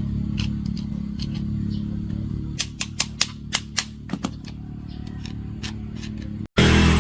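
A steady machine hum with a run of about six sharp clicks in the middle. Near the end it breaks off abruptly into a louder, harsher noise.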